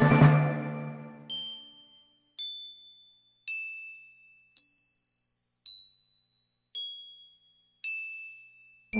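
A series of seven high, bell-like dings at different pitches, about one a second, each ringing out and fading. Background music dies away in the first second, and brass music comes in right at the end.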